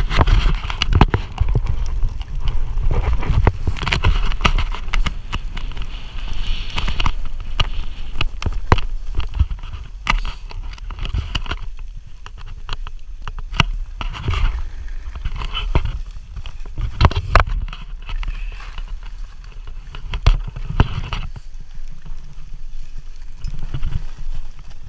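Skis running and turning through soft snow, a steady hissing scrape, with wind buffeting the camera microphone as a low rumble and frequent sharp knocks.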